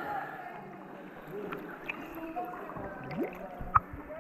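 Sea water lapping and gurgling at the surface, with faint voices in the background. A sharp knock comes near the end.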